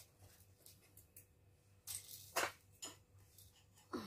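A few short, faint clicks and knocks in the second half as screws and a screwdriver are handled against a metal table frame during assembly.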